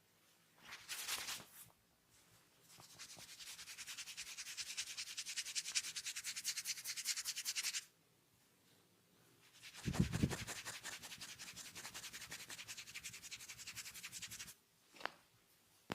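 Hands rubbing briskly over a person's hair and scalp during a head massage, in fast, even strokes. There are two long spells of rubbing, the second starting with a dull thump, and a short scrape and a click outside them.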